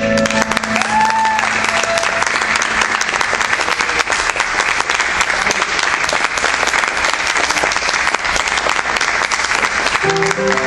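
Audience clapping steadily after a musical number ends.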